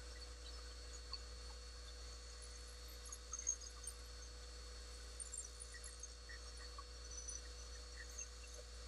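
Faint steady electrical hum with small scattered clicks and ticks as a metal caliper is handled against an ebony pen blank.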